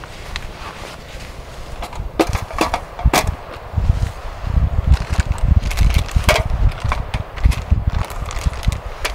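Plastic food containers and a zip-top bag being handled: a few sharp clicks and rustles. From about four seconds in, low rumbling gusts of wind hit the microphone.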